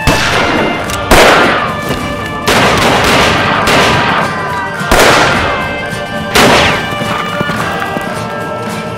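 Revolver gunshots from a film soundtrack, about five sharp shots a second or more apart, each with a long echoing tail, over background music with held tones.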